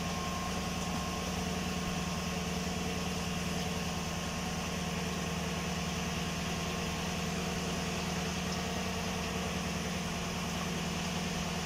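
A 2015 Chevrolet Tahoe's V8 engine idling steadily. It is running so that the transmission pump pushes the old fluid out through the cooler return line during a fluid exchange.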